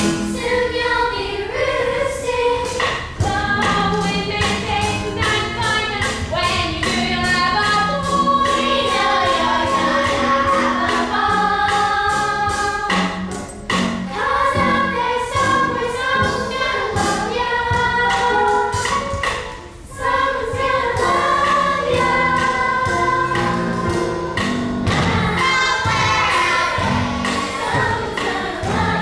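An ensemble singing a musical-theatre number together over a backing track with a steady beat.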